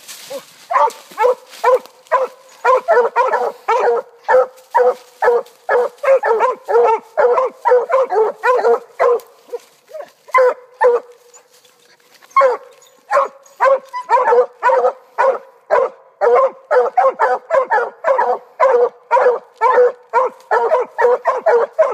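Two hunting hounds barking treed at the foot of a tree, a fast, steady string of barks at about two or three a second, with a short break about eleven seconds in.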